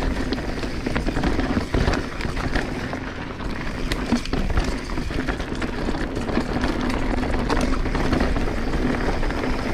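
2022 Transition Sentinel full-suspension mountain bike being ridden along a dirt trail: steady tyre and trail noise with many short, sharp knocks and rattles scattered through it.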